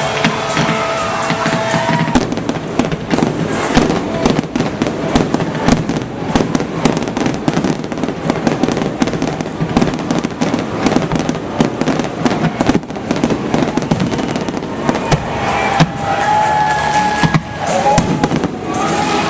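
Fireworks display: a dense barrage of rapid bangs and crackles through most of the stretch, easing off near the end, with music playing underneath.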